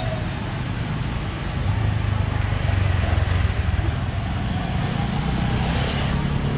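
Motor scooter engines running past on a city street, over a steady hum of street noise; the engine rumble gets louder about two seconds in, as if a scooter passes close, then eases back.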